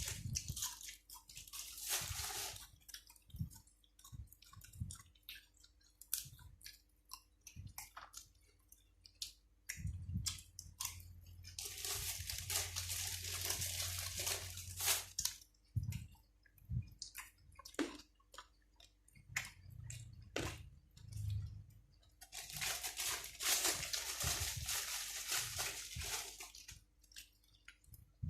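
A person chewing and crunching food up close: a pork-cheek salad eaten with raw vegetables. Many short crunches and mouth clicks, with two longer stretches of crisp crunching in the middle and near the end.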